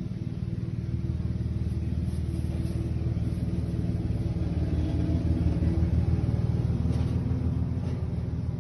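Steady low mechanical rumble, a little louder about halfway through.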